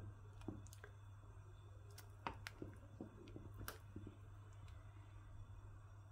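A few faint clicks and light knocks of a wooden spoon against an enamel pot as a simmering meatball soup is stirred and meatballs are scooped up, over a low steady hum.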